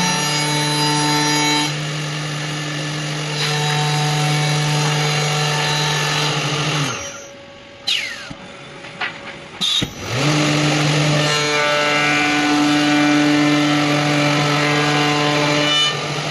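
CNC machine spindle running with a steady whine, winding down about seven seconds in. After a few short knocks it starts up again about three seconds later, runs steadily and winds down near the end.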